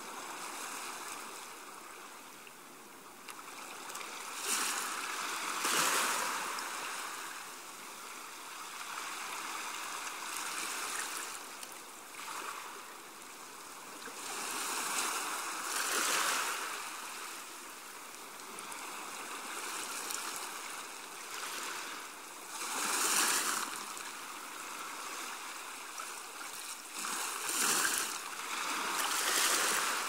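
Small waves lapping and washing up on a sandy beach, each wash swelling and fading every few seconds, with a few stronger surges.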